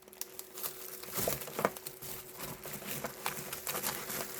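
Packaging being handled and unwrapped: light rustling of wrapping with small irregular clicks and taps.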